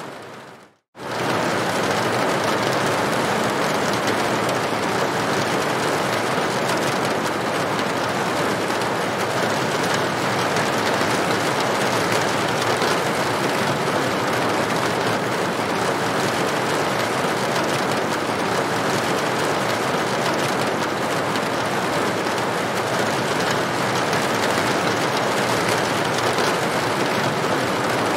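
Steady rain falling on a tin roof, an even hiss of drops. The sound fades to silence just under a second in, then cuts back in at full level and runs on unchanged.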